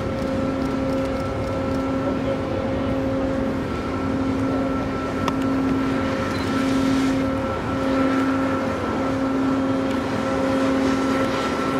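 Steady mechanical hum from a cargo ship's machinery: the deck crane's power unit and the ship's engines, a constant drone holding several fixed tones.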